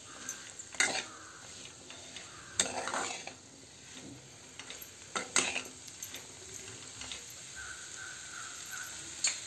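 Steel spatula stirring and scraping masala-coated potatoes and green peas around a frying pan as they sauté in oil, over a soft sizzle. A few louder scrapes of the spatula against the pan stand out.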